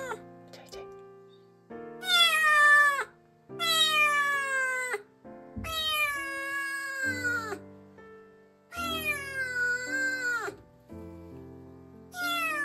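Kitten meowing loudly: four long cries, each falling in pitch, every two to three seconds, with a fifth starting at the end. These are the distress cries of a frightened stray kitten. Quiet background music plays underneath.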